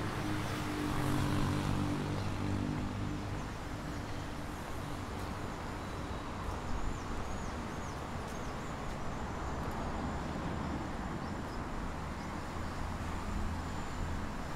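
Traffic from a nearby city street: one vehicle engine passes in the first few seconds and fades, over a steady rumble of traffic, with a low engine sound swelling again near the end.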